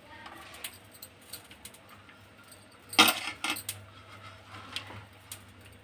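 Faint light taps and rustling as chopped onion is sprinkled by hand onto a plated omelette and patty, with a short cluster of metallic clinks about three seconds in from the steel bowl of chopped vegetables.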